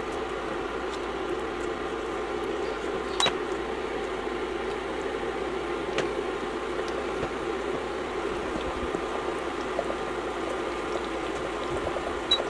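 Chicken in chili sauce and broth simmering in a stainless steel pot, a steady bubbling hiss. A metal spoon clinks sharply against the pot about three seconds in and again about six seconds in as the pot is stirred.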